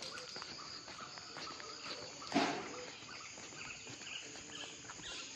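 Faint outdoor background of insects chirping, with a short noise about two and a half seconds in.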